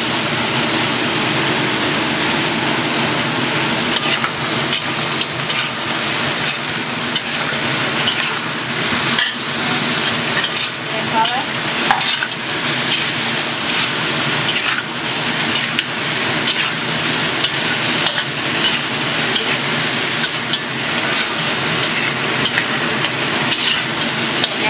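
Cubed meat sizzling in a hot wok, freshly coated with dark soy sauce, as it is stir-fried. A spatula scrapes and clacks against the wok in frequent sharp ticks over the steady sizzle.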